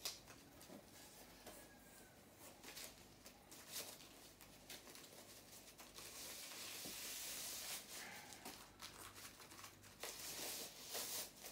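Faint rustling and crinkling of packing wrap being unwound and pulled off by hand, with small scattered clicks; the rustling is louder from about six to eight seconds in and again near the end.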